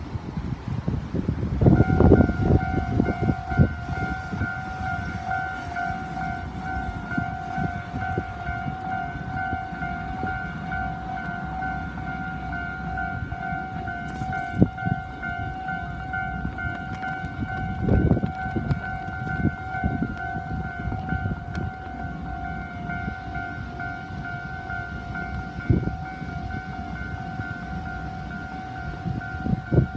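Japanese railroad level-crossing electronic warning bell starting to ring about two seconds in and ringing on with a steady repeated two-tone clang.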